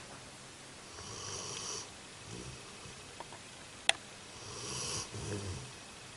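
Slow, deep snoring from a sleeper: two long, breathy snores about three and a half seconds apart, with a single sharp click between them.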